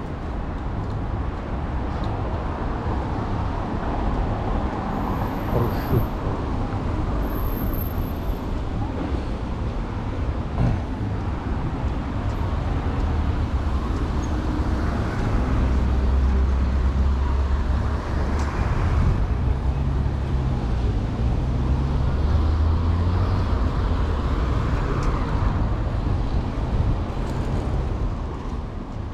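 Road traffic passing: a steady mix of car engines and tyre noise, with a heavier vehicle's low engine rumble through the middle. The sound fades out near the end.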